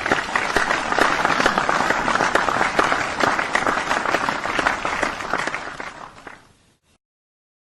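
Small audience applauding: a dense patter of many hands clapping that tails off and fades out near the end, leaving silence.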